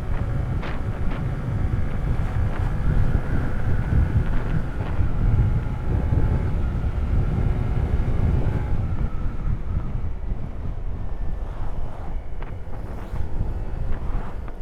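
Heavy wind buffeting on the microphone of a moving rider, with a faint steady whine underneath that fades out about nine seconds in.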